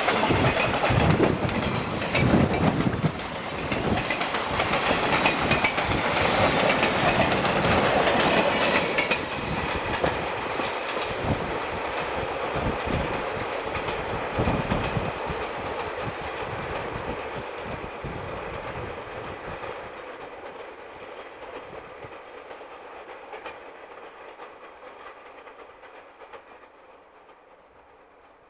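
Freight train cars rolling past close, their wheels clacking and knocking over the rail joints. After about ten seconds the sound fades slowly as the end of the train draws away, and by the end it is faint.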